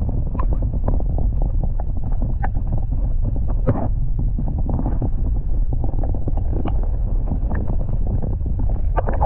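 Muffled audio from a camera held underwater: a steady low rumble of water moving around the camera, with scattered small clicks and ticks.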